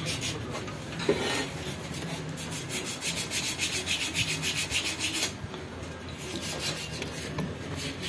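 Fast, even rasping strokes, about five a second, that stop about five seconds in, followed by fainter scraping and a few light knocks.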